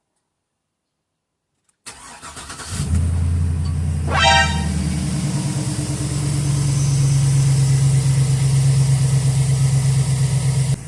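Hummer H2's 6.0-litre V8 cranked by the starter about two seconds in, catching and settling into a steady idle. A brief high-pitched squeal sounds about four seconds in as it fires up.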